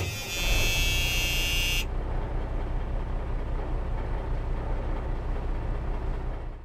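A harsh buzzer-like tone with many overtones cuts off about two seconds in, over a low vehicle rumble that carries on and stops abruptly near the end.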